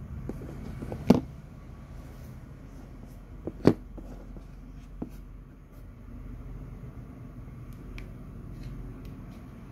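Sharp plastic clicks from a small LED name badge being handled and pressed on its back: two loud clicks about two and a half seconds apart, then a few lighter ticks, over a steady low background hum.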